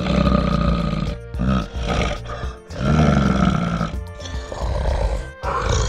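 Two long, low animal calls, each lasting about a second, over background music.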